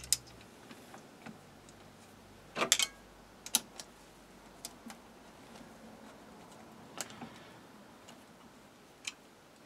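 Scattered light metal clicks and clinks of an Allen key and screw against the steel bracket of a lathe indexing plunger as it is fitted, with a short cluster of clicks about two and a half seconds in and single ones after.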